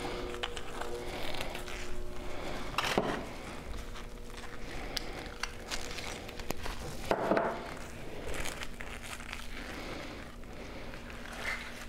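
Irregular rustling and crinkling handling sounds with scattered small clicks, and louder scuffs about three and seven seconds in.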